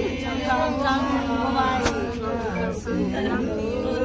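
A voice singing a wavering melody over a steady low musical accompaniment, with one sharp click a little under two seconds in.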